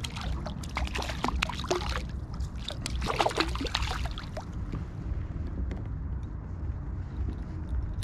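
River water running, with a steady low rumble of wind on the microphone. Scattered short clicks in the first half.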